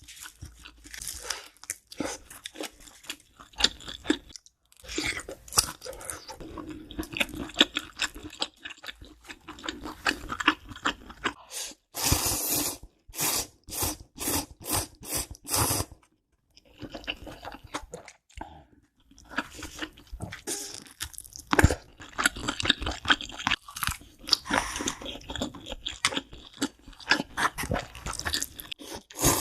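Close-miked eating sounds: crunching and chewing of food, with a run of loud, evenly spaced crunches about halfway through.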